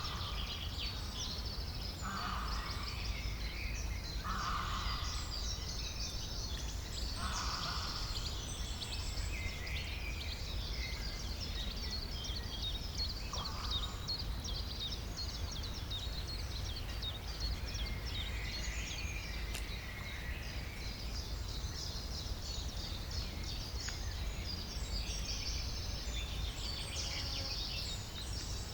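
Rural outdoor ambience: many small birds chirping and calling at once, over a steady low rumble. A lower call is heard five times in the first half.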